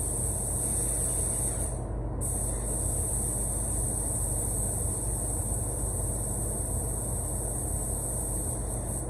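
Steady roar of a spray booth's ventilation fan, with a high hiss on top that drops out for a moment about two seconds in.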